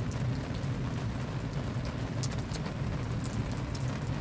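Steady rain falling, an even hiss with scattered sharp ticks over a low rumble.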